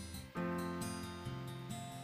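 Instrumental background music: held notes changing every so often, with a new chord about a third of a second in.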